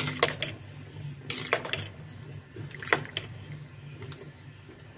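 A long metal spoon stirring whole kumquats in water in a stainless steel pot, with water sloshing and a few sharp clinks and scrapes of the spoon against the pot.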